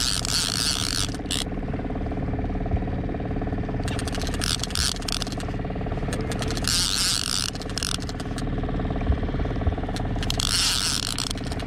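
A boat motor runs steadily underneath. Over it come four short spells of a rasping whir with clicks as a Magda Pro line-counter trolling reel is cranked against a heavy king salmon.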